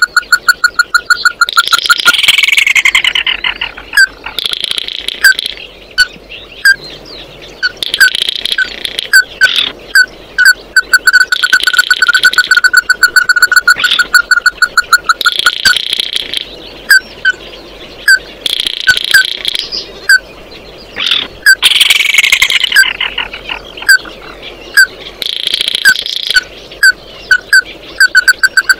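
Ruddy-breasted crake calling: runs of rapid, sharp notes repeated at one pitch, broken twice by a falling trill, once about two seconds in and again about two-thirds of the way through.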